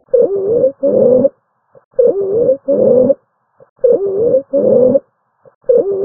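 Biphasic stridor: a harsh, high-pitched, musical noise on each breath in and a slightly shorter one on each breath out, repeating about every two seconds for four breaths. It is the sign of a severe subglottic obstruction of the upper airway.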